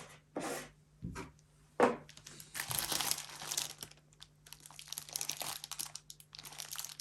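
Plastic keyboard packaging crinkling and rustling as it is handled and pulled open, with a sharp knock about two seconds in.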